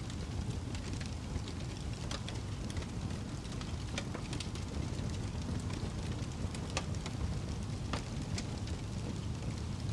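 Wood fire burning in a fireplace: a steady low rumble of flames with sharp crackles and pops scattered throughout, a few of them standing out.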